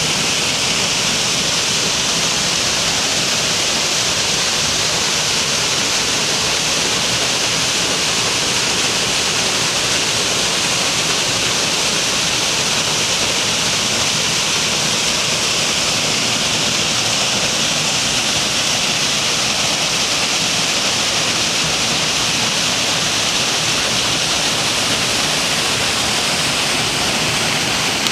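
Waterfall: falling water rushing in a loud, steady hiss that does not change.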